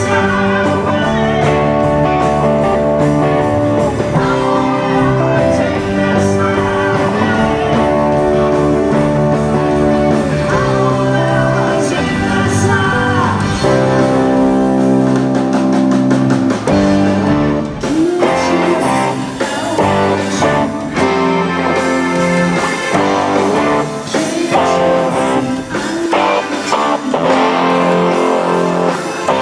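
Live rock band playing, with electric guitar to the fore over bass guitar and drums.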